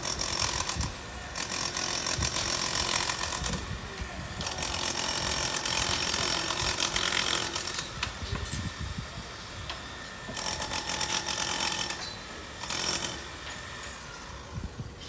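Power tool working the brownstone facade from the scaffold, chipping away the stone. It runs in about five bursts of one to three seconds with short pauses between, the longest about halfway through.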